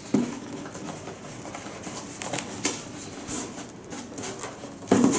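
A large cardboard box being handled and worked open on a table: cardboard rubbing and rustling with small knocks, a sharper knock just after the start and a louder thud near the end.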